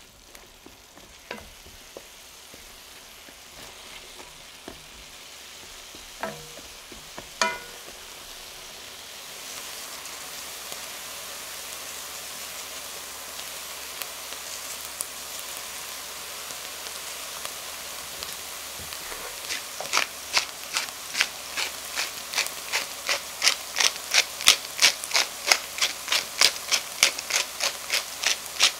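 Mushrooms and onion sizzling in a stainless-steel pot, the sizzle growing louder about a third of the way through. A couple of ringing metal clinks come a few seconds in, and in the last third a fast run of sharp clicks, about two to three a second.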